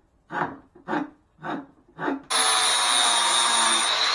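Hand rasp scraping a wooden hammer handle in four even strokes, about two a second. Just past halfway an angle grinder with a sanding disc starts up at once and runs steadily against the wood, loud with a high whine.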